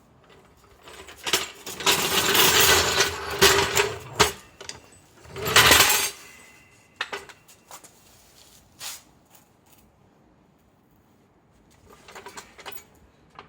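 Metallic clinking and rattling in two loud spells, the second one short, followed by a few scattered clicks.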